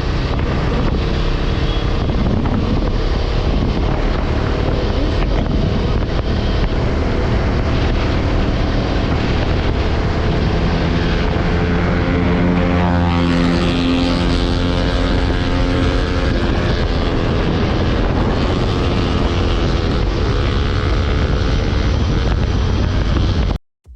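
Motorcycle engine running steadily on the move, with wind noise on the microphone; the engine note comes through more clearly for a few seconds around the middle, and the sound cuts off abruptly just before the end.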